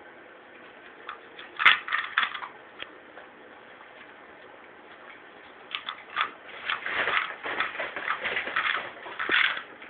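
A dog biting into and crunching a poppadom: one sharp crack about two seconds in with a few crunches after it, then a run of dense crackly crunching through the second half.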